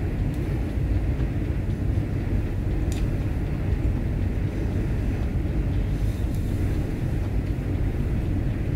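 Steady low background rumble, with a faint click about three seconds in.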